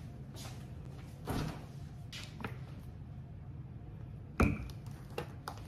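Things being handled on a granite kitchen counter: a few soft rustles, then one sharp, loud knock about three quarters of the way through, followed by two lighter clicks.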